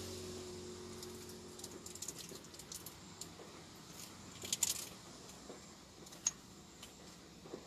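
Scattered small clicks and light rattles, with a brief cluster about four and a half seconds in and one sharp click about six seconds in, after a low tone fades out in the first two seconds.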